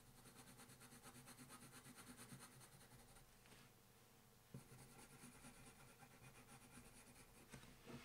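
Faint scratching of an earth-green colored pencil shading on drawing paper in quick, short strokes, several a second, with a brief pause a little past halfway.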